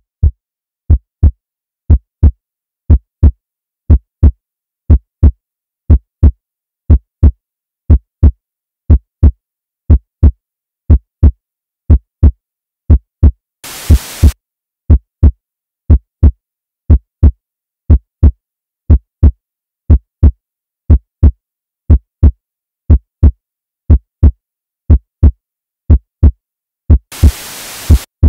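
Heartbeat sound effect: a steady double thump about once a second. Two short bursts of static hiss break in, one about halfway through and one near the end.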